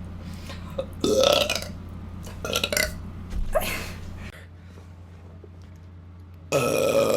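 A person burping loudly several times: a big burp about a second in, two shorter ones soon after, and a long, loud, pitched burp near the end.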